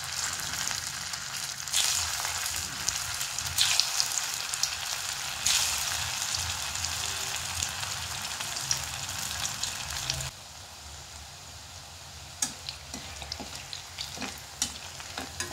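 Poha and potato fingers deep-frying in hot oil in a steel kadai, a steady sizzle and crackle. About ten seconds in it turns quieter, with scattered sharp pops and clicks.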